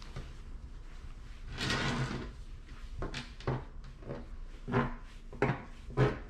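Metal grooming comb drawn through a Maine Coon's long, thick coat: one longer swish about two seconds in, then about five short strokes.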